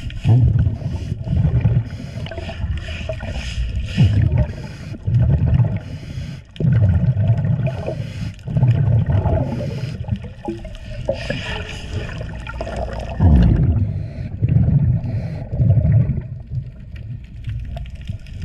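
Underwater scrubbing of a boat hull with a scouring pad, in muffled strokes about once a second, mixed with gurgling bursts of the diver's exhaled air bubbles.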